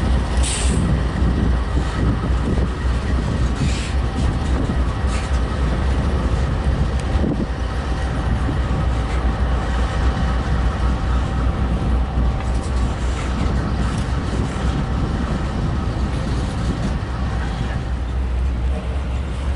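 Freight train cars rolling past: a steady low rumble with a few short high-pitched sounds.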